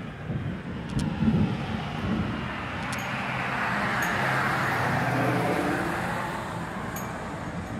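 A car passing on the street: its road noise swells to a peak about four seconds in, then fades away, with a low engine hum under it. Low rumbling sounds in the first second or so.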